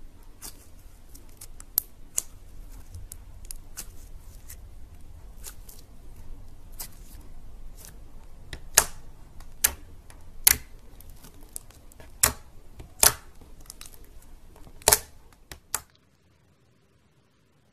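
Clear glitter slime being squeezed and pressed by hand, with sharp pops and clicks as air pockets in it burst. The pops come at an uneven rate, and about a second apart in the second half there are several much louder pops. The sound cuts off near the end.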